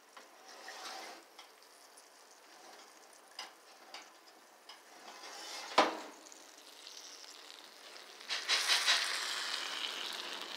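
Hot food sizzling in a toaster oven as it is opened and handled with an oven mitt, the hiss growing louder in the second half, with scattered clicks and one sharp clank about six seconds in.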